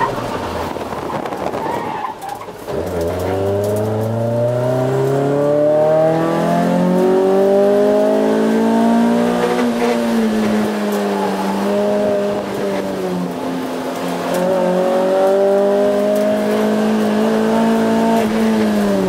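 Toyota Corolla AE86's four-cylinder engine heard from inside the cabin, revving hard under acceleration. Its pitch drops about two seconds in as the throttle lifts, climbs steadily for several seconds, dips around the middle, climbs again and falls near the end.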